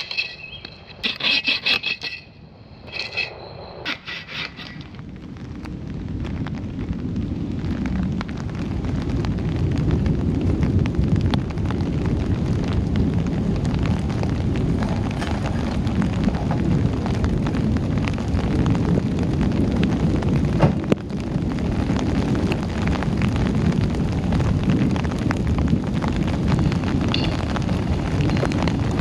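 Heavy rain pouring onto a tent, building over the first ten seconds into a steady, loud downpour. A few short high-pitched sounds come in the first few seconds.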